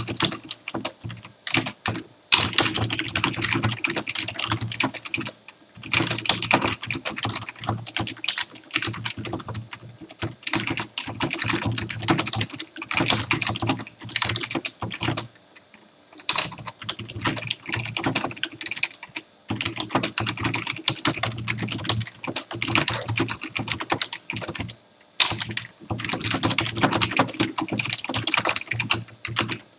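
Typing on a computer keyboard: quick runs of key clicks, broken every few seconds by short pauses, with a few louder single clacks among them.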